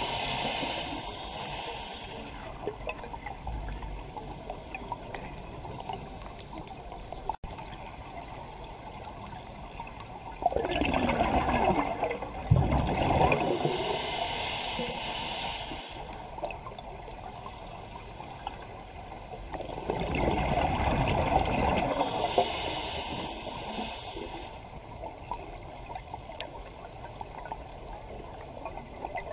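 Exhaled bubbles from a scuba diver's regulator gurgling past an underwater camera, in three long breaths about ten seconds apart: one at the start, one about eleven seconds in and one about twenty seconds in, each lasting a few seconds, with a low steady underwater hiss between.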